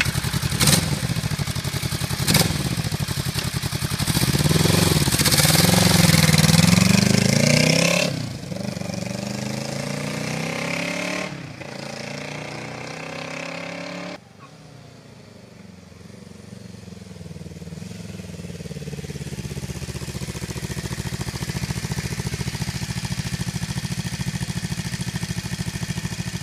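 Yamaha motorcycle's 180-degree parallel-twin engine, an uneven-firing layout, revved in rising and falling bursts, loudest a few seconds in. After a sudden drop it is faint, then grows louder over several seconds as the bike comes closer, and it runs steadily near the end.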